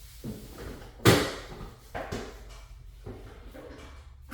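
A few sudden knocks and clunks, like a door or compartment being handled. The loudest comes about a second in, with softer ones about two and three seconds in.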